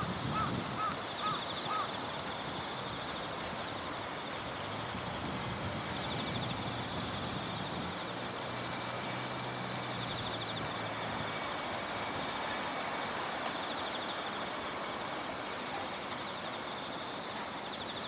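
Outdoor stream-bank ambience: a steady hiss with a high, fast trill that comes and goes. Five short, high chirps sound in the first two seconds. A low drone rises from about eight to eleven seconds in.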